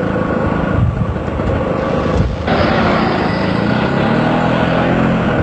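Street traffic: motor vehicle engines running with road noise, the sound changing abruptly about halfway through.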